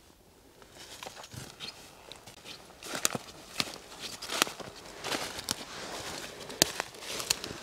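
Footsteps in boots crunching through dry fallen leaves, faint at first and louder from about three seconds in, with sharp crackles mixed in.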